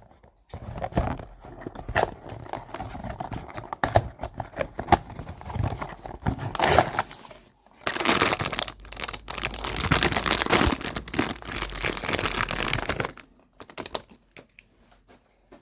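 A Pop Mart blind box being opened by hand: packaging torn and the inner blind bag crinkled and rustled in irregular bursts, with the loudest, longest stretch of tearing and crinkling in the second half.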